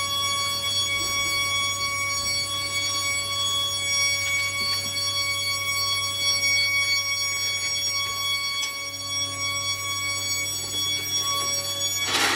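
Foundry machinery running: a steady high-pitched whine made of several fixed tones over a low hum, with a sharp metallic clatter near the end.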